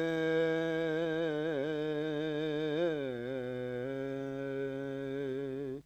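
A male voice holding the long closing note of a naat, with a slight waver. The pitch steps down twice, about three and four seconds in, and then the note cuts off.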